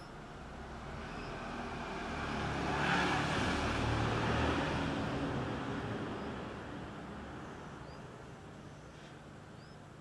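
A vehicle passing by: a rush of road noise that swells to its loudest about three to four seconds in, then fades away. A few faint, short high chirps from a begging Red-vented Bulbul nestling sit over it near the start and near the end.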